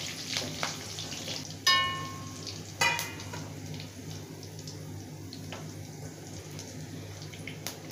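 Green chillies and curry leaves sizzling in hot coconut oil in a metal kadai. A metal spoon knocks against the pan twice, about one and a half and three seconds in, each strike ringing briefly.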